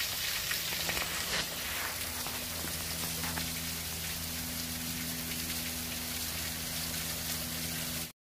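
Small waterfall: a thin stream of water falling down a mossy rock face and splashing steadily into a shallow pool, with a faint low hum underneath. It cuts off suddenly near the end.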